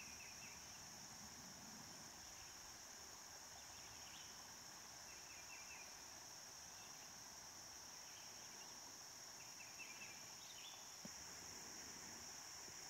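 Faint, steady insect chorus, an even high buzz, with short high chirps every second or two.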